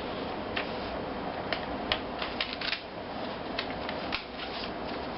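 Folded paper being handled and pressed together: scattered light crinkles and taps, at irregular moments over a steady hiss.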